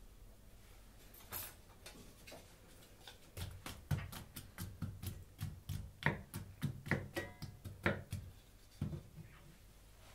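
Wooden spatula stirring chopped onion in a non-stick frying pan, knocking and scraping against the pan. The knocks start a few seconds in, come about three a second, and stop shortly before the end.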